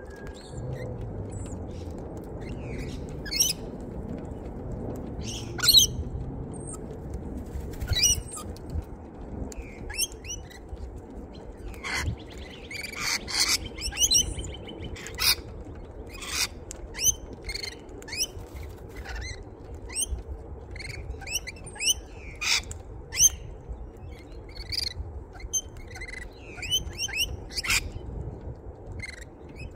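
Wild birds at a seed feeder calling: many short, high chirps and squawks scattered throughout. A denser cluster of harsher, screechy calls comes about twelve to fourteen seconds in. A low, steady rumble sits underneath.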